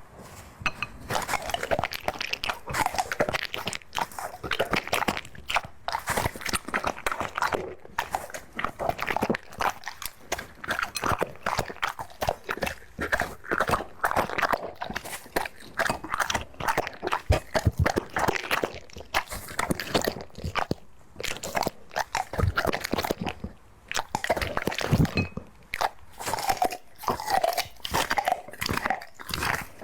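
A dog chewing and crunching food, a rapid, irregular run of crunches and bites with short pauses between mouthfuls.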